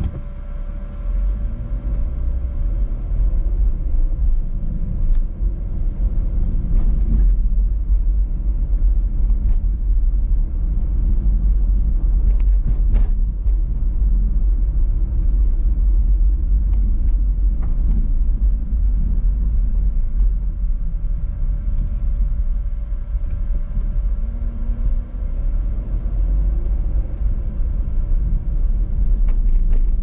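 A car driving through city streets: a steady low rumble of engine and road noise, with a few faint clicks along the way.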